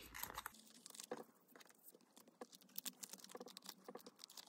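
Near silence with faint, scattered light clicks and plastic rustles: photocards being handled and slipped into plastic binder pocket pages.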